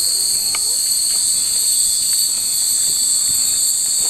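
Steady, unbroken high-pitched drone of cicadas singing in the trees, with a few faint tinkles of hanging glass wind chimes.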